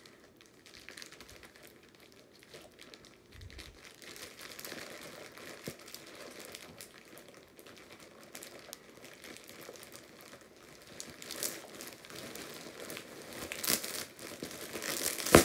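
Plastic poly mailer bag crinkling as hands pick and pull at it, trying to tear it open without a knife, with a few louder crackles near the end.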